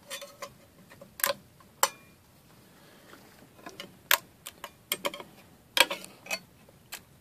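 Sharp, irregular clicks and cracks of a freshly printed PLA part being pushed and wiggled on the 3D printer's build plate to break it loose, about a dozen in all. The loudest come about a second in and at about four and six seconds.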